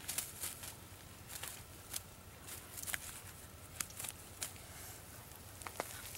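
Scattered crackles and snaps of dry leaf litter and twigs underfoot as a person crouches and shifts their feet in undergrowth.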